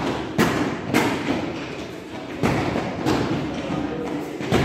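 A beaten-out rhythm of sharp thumps coming in pairs, the two beats about half a second apart and a pair roughly every second and a half, the way a leader demonstrates a beat for a group to copy.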